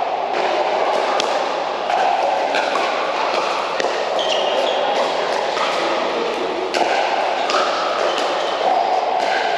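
Pickleball paddles striking the ball in a doubles rally, sharp hits about once a second, over a steady background din.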